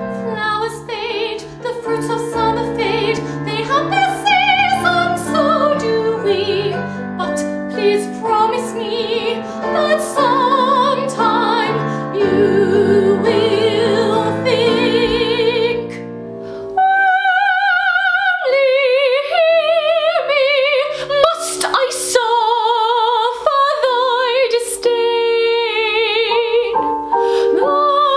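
A woman's classical, operatic singing voice with wide vibrato, over instrumental accompaniment. About 17 seconds in it cuts to a second song, with lighter accompaniment beneath the voice.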